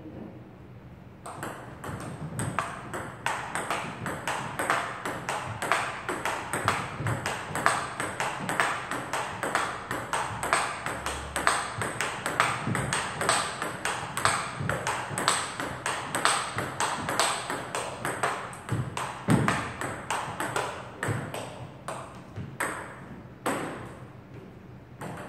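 Table tennis rally: quick, regular clicks of the celluloid ball striking rubber paddles and bouncing on the table, several a second, starting about a second in and thinning out near the end.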